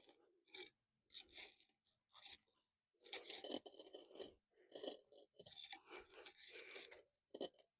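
Irregular scraping and rubbing of a plant pot, soil and roots as a monkey tail cactus is worked loose to lift it out of its pot, in short bursts with longer stretches about three and six seconds in.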